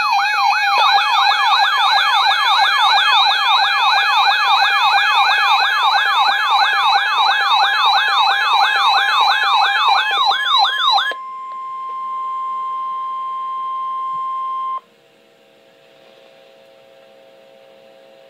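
Emergency alert siren warbling rapidly up and down, about three sweeps a second, cutting off about 11 seconds in. A steady single alert tone follows for about four seconds, then only a faint hum.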